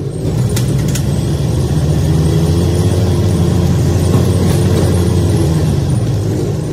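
A road vehicle's engine running steadily as the vehicle drives up a parking-garage ramp, heard from inside the vehicle. There are a couple of light clicks in the first second.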